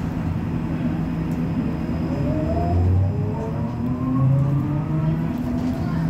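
Caio Millenium BRT trolleybus standing with a steady electrical and mechanical hum. About two seconds in, a whine rises steadily in pitch over a few seconds, then the hum settles again.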